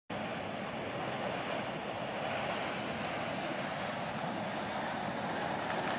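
Steamboat Geyser venting steam: a steady rushing hiss that holds at the same level throughout.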